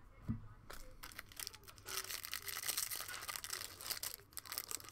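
Trading cards and a foil card-pack wrapper being handled: a light knock about a third of a second in, then from about two seconds in a dense stretch of crinkling and tearing.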